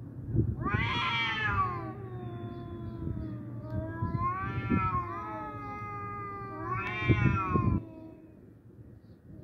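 Two cats yowling at each other in an aggressive standoff: long, wavering caterwauls that rise and fall in pitch, in three drawn-out bouts over a lower, steady moan, dying down near the end.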